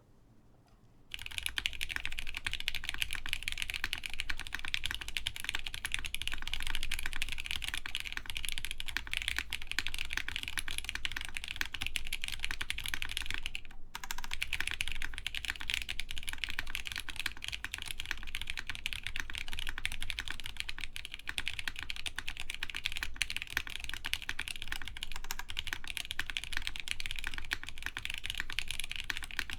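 Continuous typing on an Axiom Studios Typ60 mechanical keyboard with lubed OP Black switches, a carbon fiber half plate and lubed clip-in stabilizers. The keystrokes start about a second in and pause briefly about halfway through.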